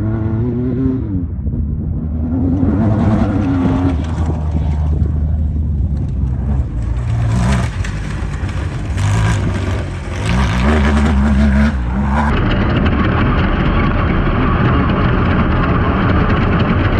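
Jimco Class 1 desert race car's engine revving up and down hard as it drives past on a dirt course. About twelve seconds in, the sound changes to a steady in-car mix of engine and wind noise heard from on board.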